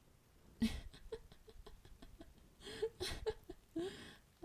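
A woman's voice laughing: a sharp breathy burst, then a quick run of short breathy ha's and a few longer voiced laughs.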